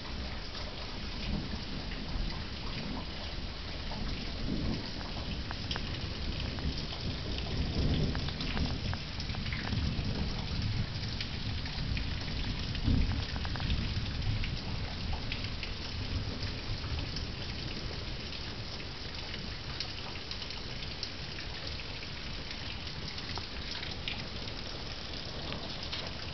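Rain falling steadily, with a low rumble that swells in the middle and fades toward the end.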